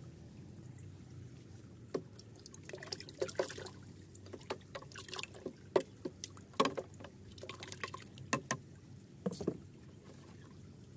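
Water sloshing and splashing in a plastic bucket as a hand stirs a powder into it: a run of irregular small splashes from about two seconds in, stopping shortly before the end.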